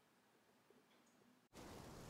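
Near silence with a couple of faint clicks, then, about one and a half seconds in, a steady low rushing room ambience starts abruptly.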